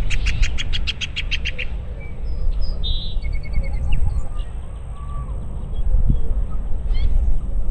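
Wild birds singing: a fast series of about a dozen clear, evenly spaced notes in the first second and a half, then scattered short chirps and a brief call near the end. Underneath runs a steady low rumble of wind.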